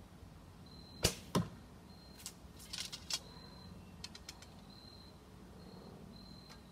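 Bearpaw Bodnik Crow recurve bow shot: a sharp snap of the string on release, then the arrow striking the target with a duller thump about a third of a second later. A scatter of lighter clicks and rattles follows as arrows are handled, with crickets trilling faintly.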